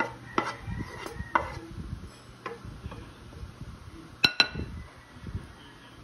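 Wooden spatula scraping stir-fried noodles out of a nonstick frying pan onto a ceramic plate: a run of light knocks and scrapes, then one sharper clink with a brief ring a little past four seconds in.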